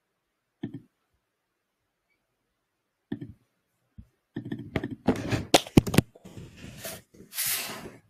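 Computer keyboard typing in a quick run of keystrokes, preceded by a few single clicks. A short breathy hiss follows near the end.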